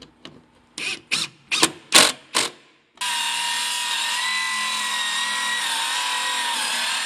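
A few quick rasping strokes, then a circular saw starts and runs steadily with a high whine, cutting down a floor joist along a guide. Its pitch sags briefly near the end as the blade takes load.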